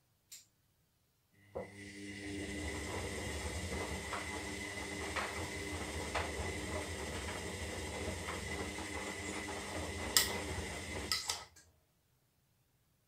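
Zanussi Lindo 300 washing machine tumbling the drum in the wash phase: after a single click, the drum motor starts and runs steadily with a low hum and light knocks from the turning load. A couple of louder clicks come near the end, then it stops abruptly, as in the pause between drum turns.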